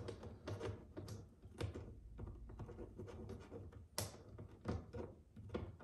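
Phillips screwdriver backing out a screw that holds a drawer rail inside a particleboard drawer: faint, irregular small clicks and scrapes, with one sharper click about four seconds in.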